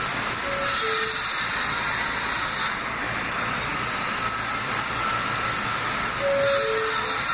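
R160B subway car's two-note descending door chime sounds twice, about a second in and again near the end, each time with a burst of hiss. Underneath is a steady high whine and hiss from the standing train, as the doors close before departure.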